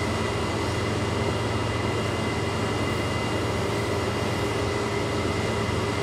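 Steady hum of a running electric machine, with a constant high thin whine over a low drone.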